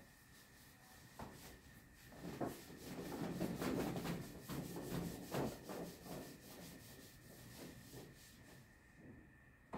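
Handheld whiteboard eraser wiping marker off a whiteboard in a run of quick back-and-forth strokes, a rubbing swish that is loudest in the middle and thins out near the end.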